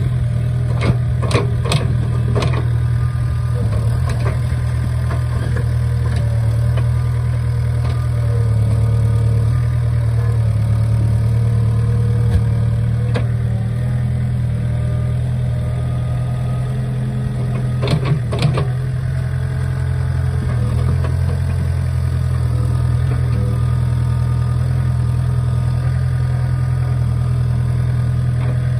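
Mini excavator's diesel engine running steadily while the machine, bogged down in deep mud, works its arm. Sharp metallic clanks come a few times near the start and again a little past the middle.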